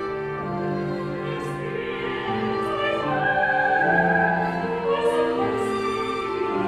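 Chamber ensemble of flute, clarinet, violin, cello and piano playing slow contemporary classical music in long held notes, with an operatic voice singing over it. The sound swells about halfway through.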